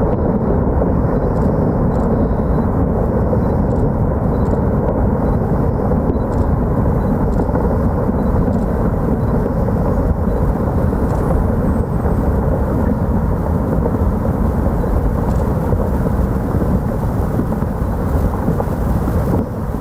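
Large rockfall set off by a controlled blast, rumbling steadily: a deep, even noise of rock tumbling down the slope, with no single sharp crack standing out.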